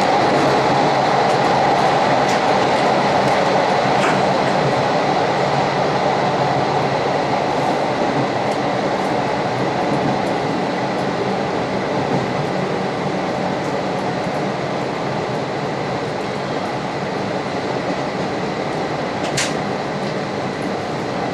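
Electric commuter train running at speed, heard from inside the passenger car: a steady rumble of wheels on rails that slowly grows a little quieter, with a faint tick or two.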